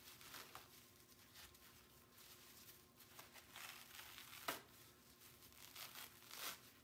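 Faint rustling and crinkling of netting being pulled off a wet wool-felted soap bar by gloved hands, with sharper crinkles about halfway through and near the end.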